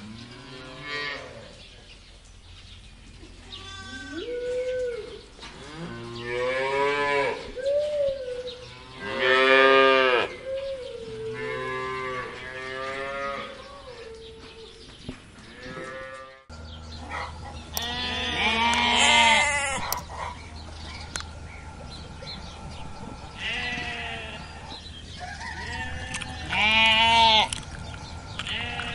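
Cattle mooing, several long calls one after another. Then sheep bleating, three wavering calls spaced a few seconds apart.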